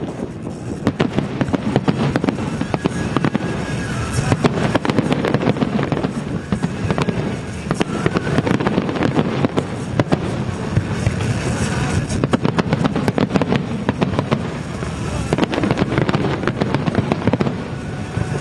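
Fireworks display: a rapid, continuous barrage of aerial shell bursts and crackling over a steady low rumble.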